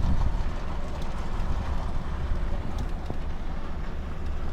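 Truck's diesel engine running steadily at low revs, a low rumble heard from inside the cab while the truck is manoeuvred slowly.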